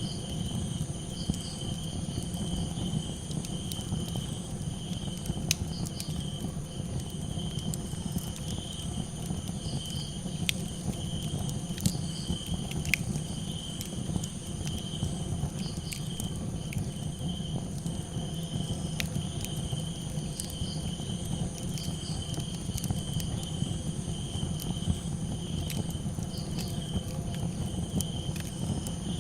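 Crickets chirping steadily while a campfire crackles with scattered sharp pops over a low steady rumble.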